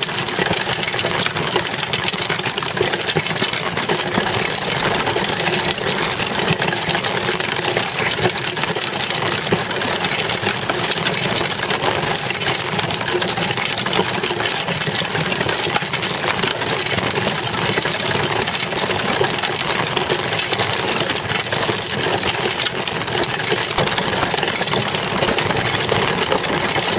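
Child's bicycle ridden on asphalt, heard close up from the bike itself: steady tyre noise on the pavement with a constant mechanical rattle.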